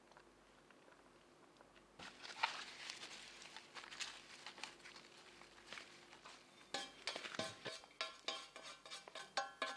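Handfuls of shredded lettuce dropping and scattering onto a burger: soft rustling and light pattering, starting about two seconds in. In the second half the metal mixing bowl clinks in a fast run of ticks and small rings as lettuce is tipped and shaken out of it.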